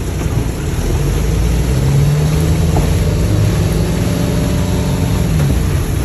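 Sailboat's auxiliary engine running hard, powering the boat into the wind while it drags anchor. Its low drone comes up about a second in and fades near the end, under loud wind noise on the microphone.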